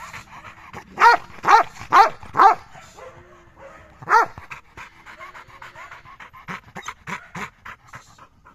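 Pit bull barking: four quick barks about half a second apart starting about a second in, one more around the middle, then rapid panting.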